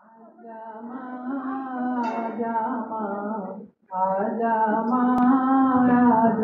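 Opening of a Hindi devotional bhajan: long held melodic notes that swell in over the first second, break off briefly just before four seconds in, then resume.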